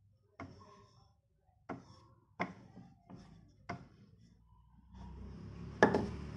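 A wooden rolling pin knocks against a metal rolling board while dough is rolled out very thin. There are about five sharp, separate knocks, the loudest near the end.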